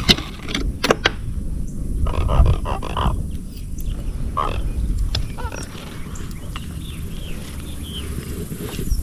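Handling noises from a channel catfish being put on a stringer aboard a kayak: a few sharp clicks near the start, then knocks and rustling, with several short grunt-like sounds.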